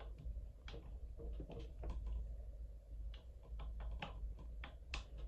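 Faint, irregular small clicks and taps of plastic PVC fittings and metal hardware being handled and fitted together by hand.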